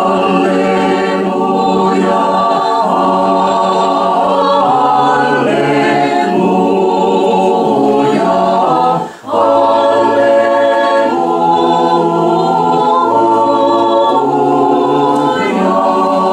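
Small mixed choir singing Orthodox liturgical chant a cappella in several parts, with long held chords and one short breath break about nine seconds in.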